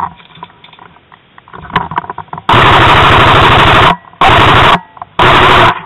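Airsoft gun fired very close on full auto in three bursts: one long burst of about a second and a half, then two short ones.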